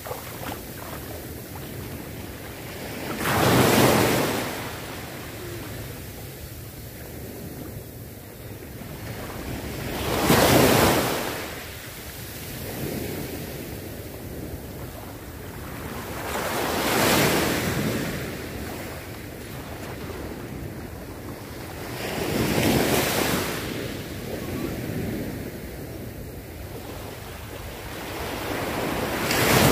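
Small waves breaking and washing up a sandy beach, five surges about six to seven seconds apart, with a steady hiss of surf between them and some wind on the microphone.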